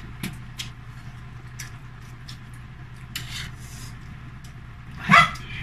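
Close-up eating sounds: spicy instant noodles being slurped and chewed, in short scattered bursts over a low steady hum, with one louder burst about five seconds in.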